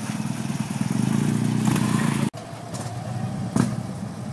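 Cruiser and touring motorcycle engines running at low speed with a steady low rumble that grows louder for about a second, then cuts off abruptly and resumes. A single sharp clack sounds near the end.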